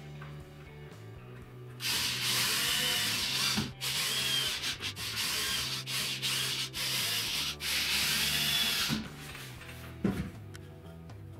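Cordless drill running into wood, a loud gritty whirr that starts about two seconds in and goes in several runs with brief stops until about nine seconds in. Background guitar music plays underneath.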